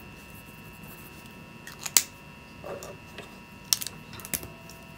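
A few sharp clicks and taps of plastic pens being put down and picked up on a wooden desk while changing pens; the loudest click comes about two seconds in, with lighter taps later.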